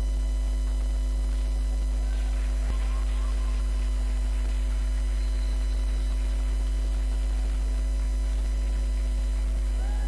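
Steady electrical mains hum, a low 50 Hz drone with its overtones, unchanging throughout.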